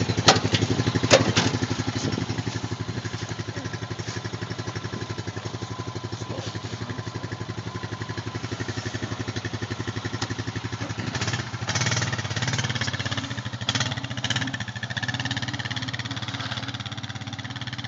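Honda 420 cc fuel-injected ATV engine running with a fast, even pulse, then pulling away under throttle in the second half. Two sharp knocks near the start.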